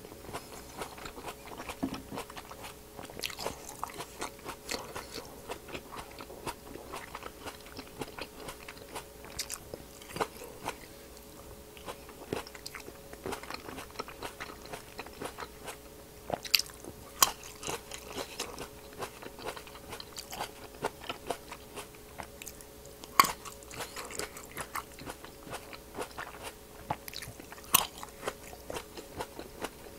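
Close-miked biting and chewing of whole grapes: a run of small wet crunches and clicks as the skins pop between the teeth, with a few much sharper pops in the second half. A faint steady hum lies underneath.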